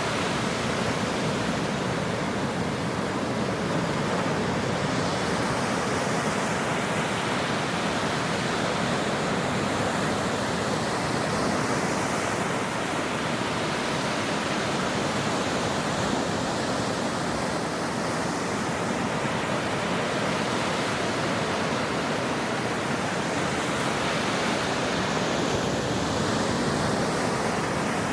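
Ocean surf: waves breaking on a shore, heard as a steady, even wash of noise with no distinct single crash standing out.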